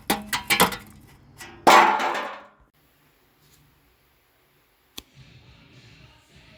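Metal clinks and knocks from handling tools and aluminum parts, ending in a louder clang that rings briefly. After that comes a stretch of near silence and a single sharp click.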